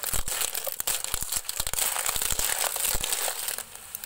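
Shell-on cockles clattering and scraping against a metal wok as they are stir-fried, a dense run of irregular clicks and rattles over a steady high hiss. The stirring eases off about three and a half seconds in.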